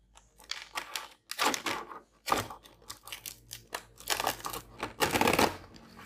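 Handling noise at a table: irregular crinkling, rustling and light clicks of packaging and plastic parts being moved about, with a longer, louder rustle about five seconds in.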